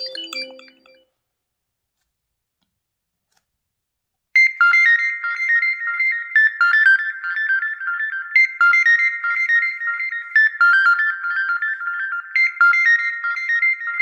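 The tail of one Xiaomi Poco F3 ringtone fades out within the first second. After about three seconds of silence another ringtone starts: a high melody of short, quick notes, its phrase repeating about every two seconds.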